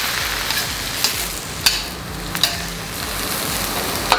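Stir-fried vegetables sizzling in a steel wok while a metal spatula stirs and scrapes through them, with a few sharp clinks of spatula against wok.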